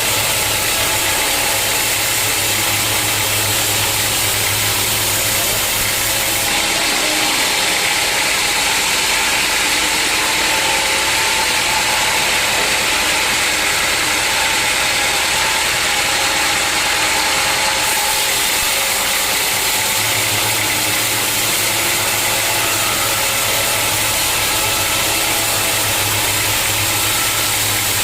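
Sawmill machinery running steadily with a loud, even hiss-like noise; a low hum drops out for about twelve seconds in the middle and returns.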